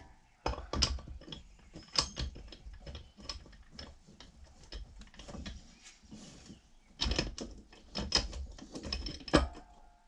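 Metal parts of a Ford C6 automatic transmission clinking and clattering as they are handled and fitted together on the bench: irregular light knocks and taps with brief metallic ringing, busiest in the last few seconds.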